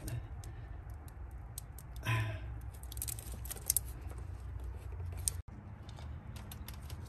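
Rubber hoses, plastic connectors and wiring in an engine bay being handled by hand: scattered light clicks and rattles.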